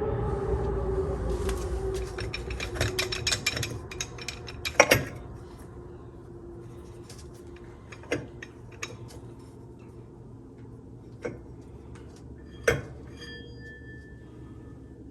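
Steel transmission parts clinking and rattling as a TH400 forward drum, hub and clutch plates are handled. A dense run of clinks gives way to a few single sharp metallic knocks, and the last of them rings on briefly. A low rumble fades out over the first few seconds.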